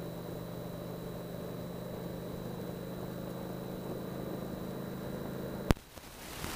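The Indian Chieftain's Thunder Stroke 111 V-twin running steadily at cruising speed in third gear, heard from the saddle with a thin steady high whine over it. A sharp click comes near the end, after which the engine sound drops out briefly and gives way to a rushing hiss.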